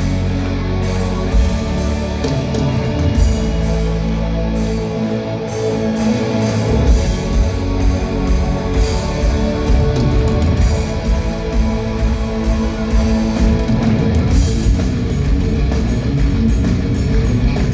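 Live rock band playing the opening of a song: electric guitars, bass and drums, with heavy held low notes in the first few seconds.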